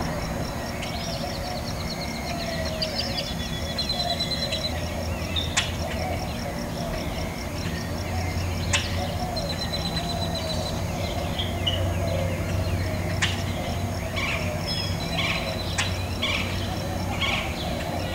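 Several birds chirping and trilling over a steady outdoor background hum, with a few sharp clicks.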